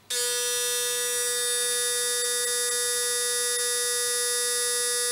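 Panasonic ES-LV95 electric shaver's linear motor switched on, starting abruptly and running with a steady, even buzz.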